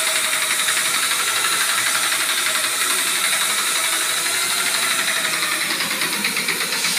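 Electric wall sander with a round abrasive pad running steadily while pressed against a plastered wall, its motor noise mixed with the sound of the pad scouring the plaster.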